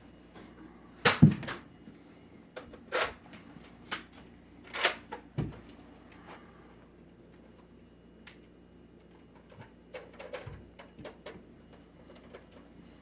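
Sharp plastic clicks and clacks from a Nerf blaster being handled, loudest about a second in, then several more over the next few seconds and fainter clicks near the end.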